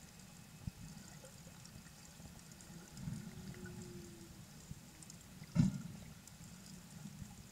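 Underwater sea ambience: a steady low churning rumble of water, with a faint held low tone about three seconds in and one sharp knock about five and a half seconds in.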